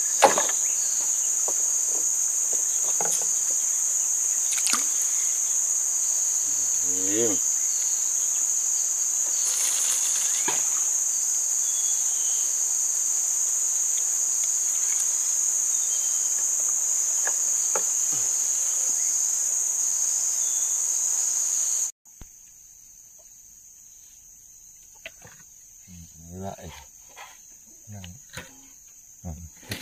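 Insect chorus, a loud, steady, high-pitched drone. About three quarters of the way through it drops suddenly to a much fainter level.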